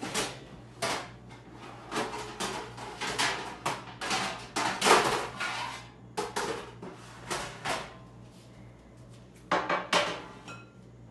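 Metal pans and baking sheets clattering and scraping in the storage drawer under an oven as one is pulled out. A few more knocks near the end as a pan is set down on a table.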